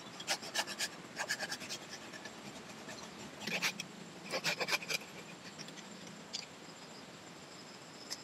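Hand pruning saw cutting through a lychee branch: four short bursts of quick rasping strokes with brief pauses between.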